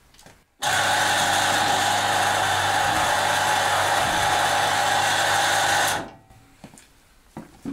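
Car lift's electric-hydraulic pump motor running steadily with a low hum, raising the car. It starts abruptly about half a second in and cuts off about five seconds later.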